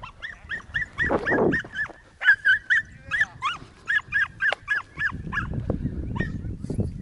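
Brittany hunting dog yipping in a fast run of short, high yelps, about three or four a second, as it works a flushed rabbit. Near the end a low rustle of movement through scrub comes in.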